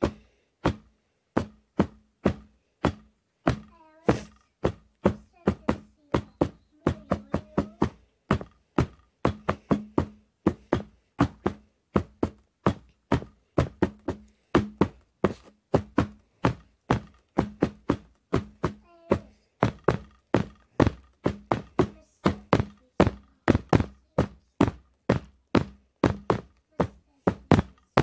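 A long series of short, sharp taps or knocks, each ringing briefly. They come about two a second at first and quicken to three or four a second later, over a faint low hum.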